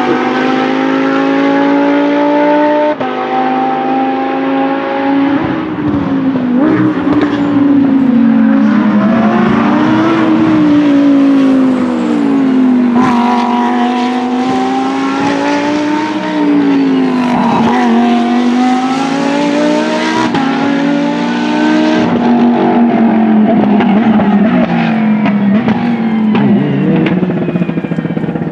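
Two Lamborghini Huracáns, the Super Trofeo EVO race car and a road Huracán, running their 5.2-litre naturally aspirated V10s around a circuit. The engine note rises and falls several times as they drive through corners, with abrupt steps at gear shifts.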